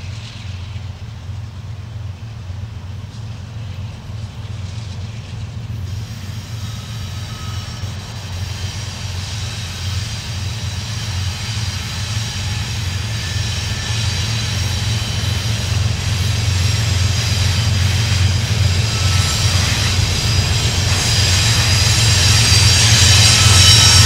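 Approaching freight train led by GE diesel-electric locomotives: a steady low engine rumble that grows louder throughout as the train nears, with a thin high whine joining about six seconds in.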